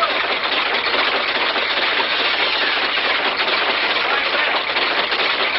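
Prototype magnetic piston motor running: a steady, fast mechanical clatter with no let-up.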